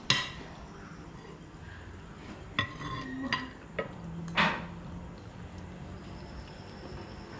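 Metal kitchen utensils clanking against metal: a handful of irregular sharp strikes, one of them ringing briefly about two and a half seconds in.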